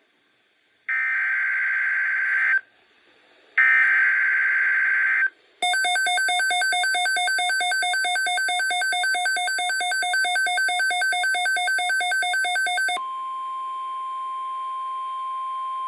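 NOAA Weather Radio emergency alert tones. Two bursts of screechy SAME digital header data, then a rapidly pulsing electronic beep for about seven seconds, then the steady 1050 Hz weather radio warning tone for about three seconds.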